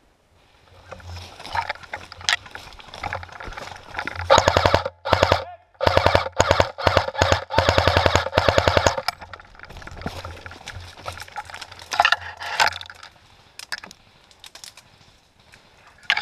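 Airsoft gun firing in rapid full-auto bursts: a short burst about four seconds in, then a longer one of about three seconds soon after, with scattered single shots around them.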